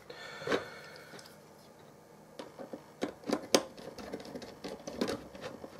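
Light, irregular clicks and taps of fingers handling a small circuit board and pushing pin leads into its screw terminal blocks. The clicks come thicker in the second half.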